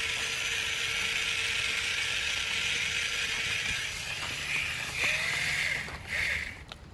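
RC tracked crawler's motor and gears whirring as its rubber tracks drive over icy pavement and into snow. Near the end the whir stops and starts in short bursts.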